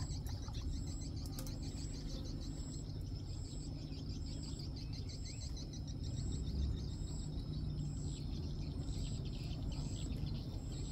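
Open countryside ambience: a steady low rumble of wind, with a short high-pitched chirp repeating evenly about once a second over a thin, continuous high trill.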